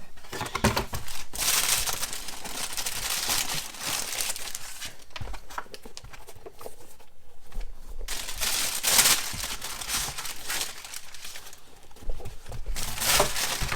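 Packaging crinkling and rustling in irregular spells as shoes are handled and unwrapped from their box, with quieter gaps in between.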